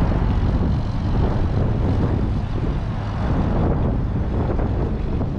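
Strong wind buffeting the microphone: a loud, steady rumble that keeps up throughout.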